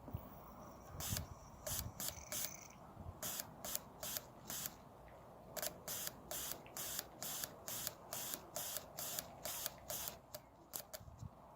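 Honda 125 fuel injector, freshly cleaned of a clog, being fired under fuel pressure to test its spray pattern: a series of short, sharp hissing spurts, a few at first, then about two or three a second, thinning out near the end.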